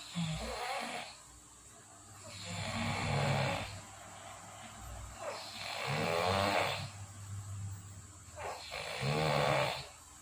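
A sleeping person snoring, one long snoring breath about every three seconds, four in all.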